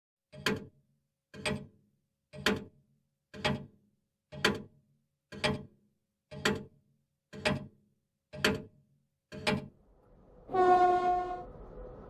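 Ten sharp ticks, one a second, like a clock, then a train whistle sounds for about a second and gives way to the steady running noise of a moving train.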